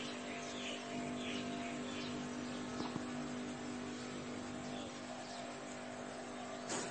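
Steady low electrical or machine hum, with faint high chirps in the first half, a click about three seconds in and a brief rustle near the end.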